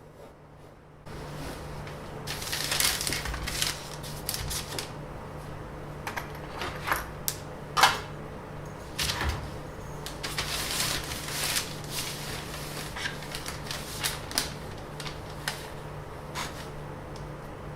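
Handling noise: irregular clicks and rustles, some sharper than others, over a steady low hum that comes in about a second in.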